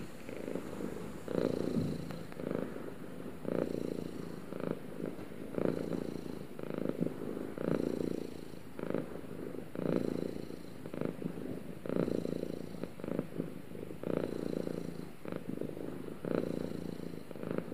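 Ginger cat purring steadily, the purr swelling and easing with each breath about once a second.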